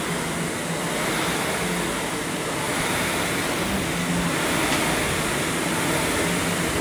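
Concept2 indoor rower's air-resistance flywheel fan whooshing steadily as the machine is rowed.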